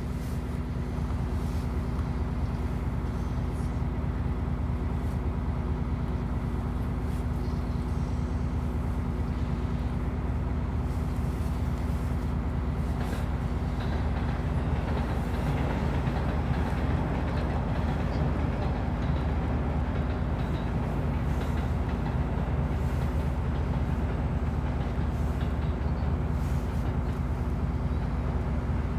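Mitsubishi Fuso Aerostar city bus's diesel engine idling, heard from inside the passenger cabin as a steady low hum while the bus stands at the stop.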